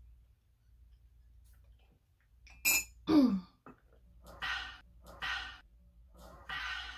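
A woman's voiced sigh, falling steeply in pitch about three seconds in, right after a short sharp sound. Then three breathy exhales, about a second apart.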